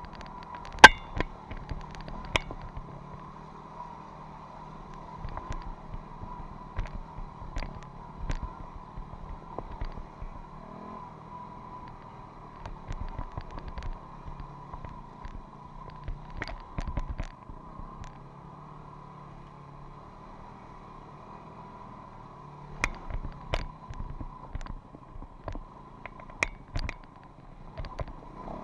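Enduro motorcycle engine running steadily on a rocky downhill trail, overlaid by irregular knocks and clatter as the bike jolts over stones; one sharp knock about a second in is the loudest.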